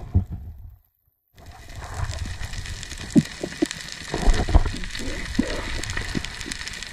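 Underwater sound picked up by a camera in a dive housing: a low water rumble with scattered clicks and knocks. The sound cuts out completely for about half a second, about a second in.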